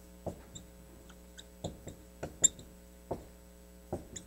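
Marker squeaking on a whiteboard in short, uneven strokes as letters are written, with one sharper tick about halfway through.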